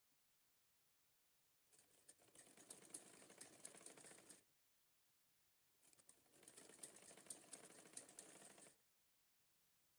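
Domestic sewing machine stitching fabric in two runs of about three seconds each, a faint fast clatter of the needle mechanism with a short pause between.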